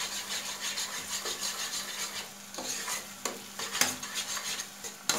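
A utensil stirring and scraping onions fried in tomato-pepper paste around a frying pan while the mixture sizzles. Quick, even strokes for about two and a half seconds, then slower, separate scrapes and taps.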